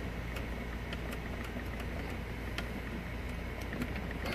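Steady low mechanical hum with faint scattered clicks and ticks of fingers prying at a 3D print stuck fast to the printer's build platform.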